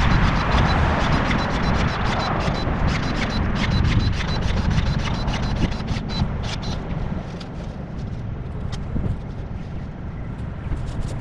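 Weeds and grass being pulled up by gloved hands: fast crackling and rustling of stems and roots tearing out of the soil, thinning out after about seven seconds. Under it, a steady low rumble of a car passing on the street.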